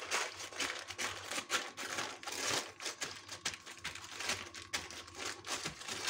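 Baking paper crinkling and rustling in irregular crackles as a small pressing tool pushes it down over a layer of ground roasted peanuts to compact it.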